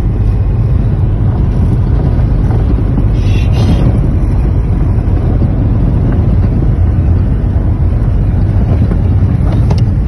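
Vehicle driving fast off-road on a rough sandy track, heard from inside the cabin: a loud, steady rumble of engine and tyres mixed with wind noise on the microphone.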